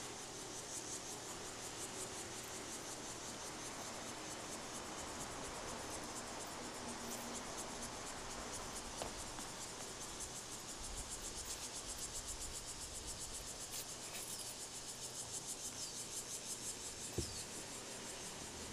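Insects chirring in a steady high drone that pulses faster and stronger in the second half, with a single sharp tap near the end.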